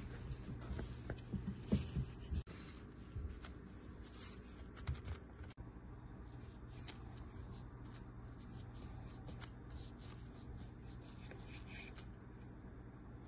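Quiet rubbing and light taps of dough being rolled and shaped by gloved hands on a wooden board, with a cluster of knocks in the first couple of seconds, then only faint scattered clicks.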